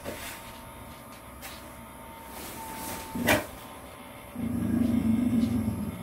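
Edited sci-fi interface sound effects: a short electronic beep, a sharp click-like hit, then a low humming rumble lasting about a second and a half.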